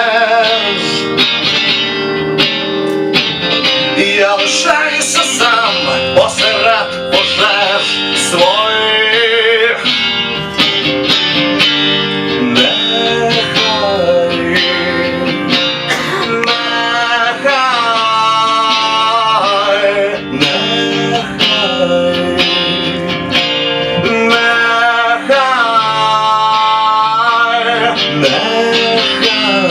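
Live band playing an instrumental passage of a song, led by guitar, with a melody line that bends and wavers in pitch.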